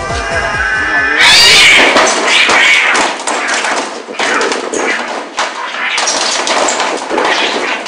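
Two domestic cats fighting. A drawn-out yowl breaks about a second in into loud screeching and yowling in rapid short bursts as the cats grapple.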